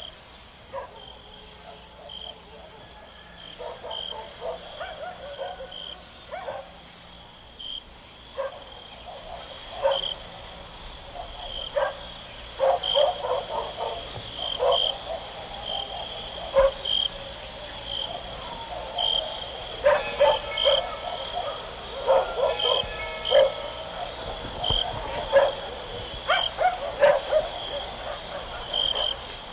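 Repeated short animal calls, irregular and getting busier after about ten seconds, over a high, short chirp repeating roughly once a second.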